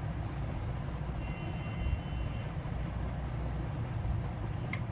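Steady low background rumble, with a faint high tone that sounds for about a second, starting a little over a second in.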